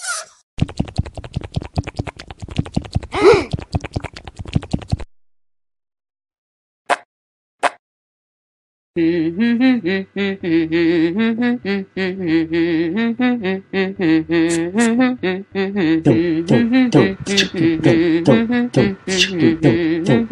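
Cartoon sound effects: a fast rattle of clicks for about four seconds, a pause broken by two short clicks, then from about halfway a wordless voice humming a tune a cappella with beatbox-like clicks over it, sung by a cartoon snail.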